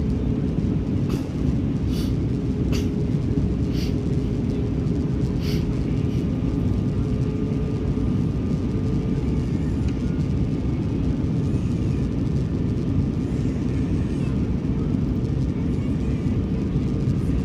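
Steady low rumble of an Airbus A320's engines and airflow during landing, with a faint steady tone over it and a few light clicks in the first six seconds.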